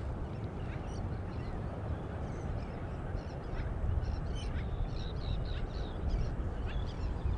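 Wind buffeting the microphone as a steady low rumble, with birds chirping and calling repeatedly in the background, most busily past the middle.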